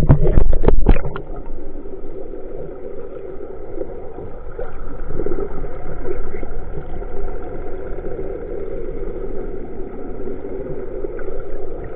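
Splashing and knocks in the first second as the camera plunges under the surface, then a fishing boat's engine heard underwater: a steady, muffled drone.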